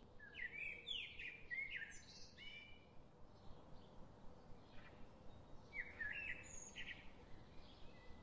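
Songbirds chirping in quick whistled phrases, in two bouts: one through the first few seconds and another about six seconds in, over a faint steady hiss.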